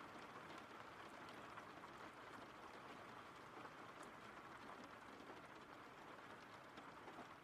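Faint, steady recorded rain: a soft even hiss with scattered small drop ticks.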